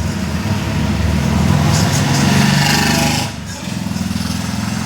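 A small engine or motor running with a steady hum that dips briefly a little past three seconds in.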